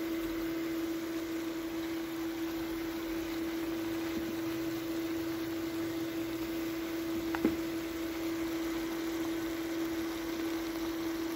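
Sunhouse induction cooktop running with a steady hum, over a faint sizzle of beef and onions stir-frying in a pan. One sharp tap of the spatula on the pan about seven seconds in.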